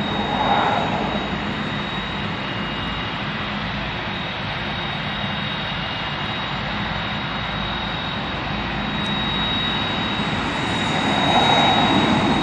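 Jet airliner engines running, a steady rushing noise with a high thin whine, swelling about ten seconds in.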